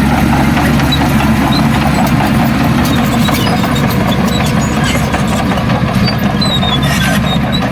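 Heavy diesel engine of earthmoving machinery running steadily at a constant speed.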